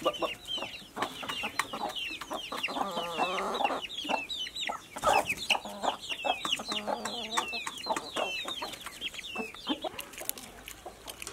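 A flock of chickens being fed: chicks peeping in many quick, high, falling cheeps, hens clucking in two spells, and scattered sharp clicks.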